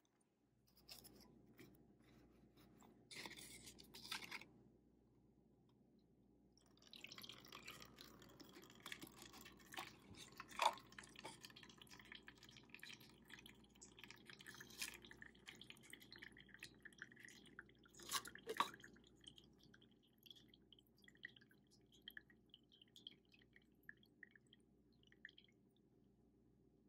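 Faint sound of salt water trickling and dripping through a paper filter in a funnel into a plastic cup, in small irregular drips that thin out toward the end, with a couple of brief soft knocks.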